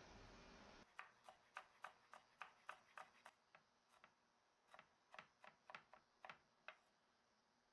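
Faint, sharp clicks or light taps at irregular spacing, about three a second, over quiet room tone.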